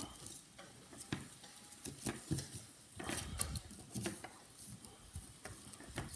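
Silver coins in clear plastic sleeves being picked up, shuffled and set down on a wooden table: irregular light clicks and taps with plastic crinkling.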